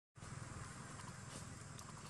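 Faint, steady outdoor background noise: a low, uneven rumble under a soft hiss, with a few faint clicks.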